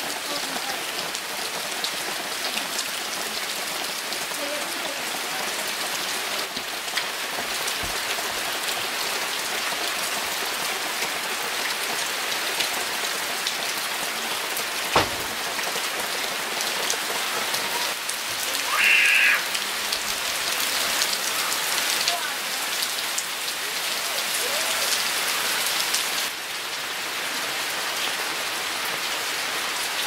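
Steady rain falling on leaves and clay roof tiles. A single sharp knock comes about halfway through, and a brief high-pitched sound a few seconds later.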